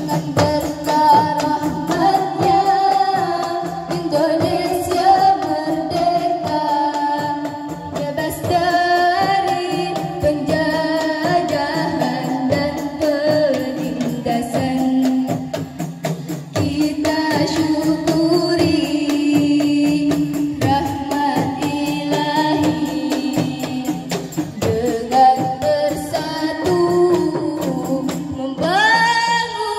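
Zamrah performance by a women's group: female voices singing a melody with a lead singer, to a steady rhythm of hand-held frame drums.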